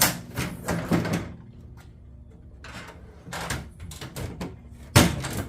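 Aluminum storage box being handled and its part snapped shut onto new weather stripping: a run of sharp metal knocks and clatter, softer clicks, then one loud knock about five seconds in.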